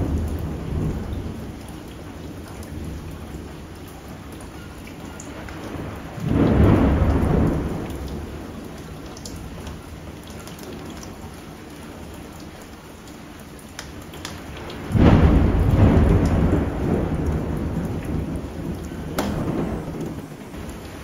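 Pork and young tamarind leaves sizzling as they are stir-fried and tossed with a spatula in a nonstick wok. The frying noise is steady, with two louder swells, about six and about fifteen seconds in.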